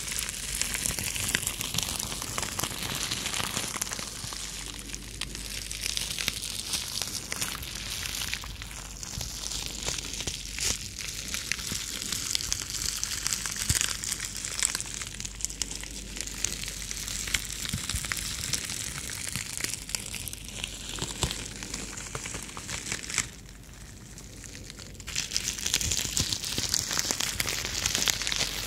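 Plastic bubble wrap crinkling and crackling as fingers and long nails rub, scratch and squeeze it close to the microphones, a dense stream of small crackles. It goes quieter for about two seconds a little after two-thirds of the way through, then picks up again.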